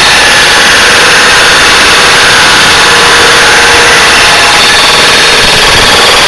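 A smashed Email window air conditioner running on test, its old-style refrigeration compressor and fans going together in a loud, steady mechanical din. The damaged unit still holds its R22 charge and is cooling.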